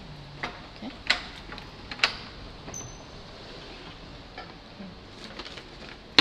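A few sharp clicks and knocks in the first two seconds, then right at the end one hard, loud knock as a helmet strikes a wooden door frame.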